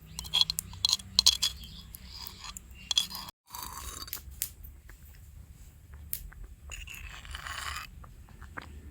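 Tiny cookware and utensils clicking, clinking and scraping in quick, irregular strokes, with a short hiss about seven seconds in.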